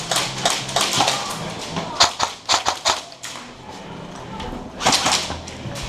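Airsoft guns firing: sharp snapping shots at irregular spacing, with a quick cluster of several shots a couple of seconds in and another burst near the end.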